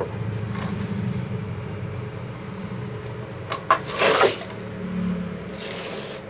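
Clicks and knocks of a Makita miter saw being handled, with its motor not running: a couple of sharp clicks, then a louder knock about four seconds in as the saw is shifted, and a brief scrape near the end. A steady low hum runs underneath.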